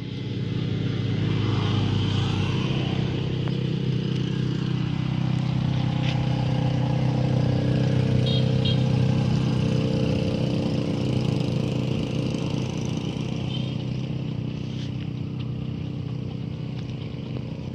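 A motor engine running steadily with a low hum. It grows louder about a second in and fades slowly over the last few seconds.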